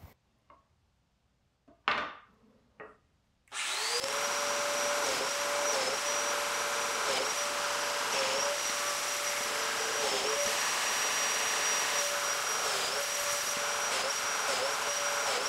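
A few knocks of wood being handled, then about three and a half seconds in a Festool Domino joiner starts and runs with a steady high whine, its pitch dipping briefly again and again as it plunges into the face-frame rails to cut mortises.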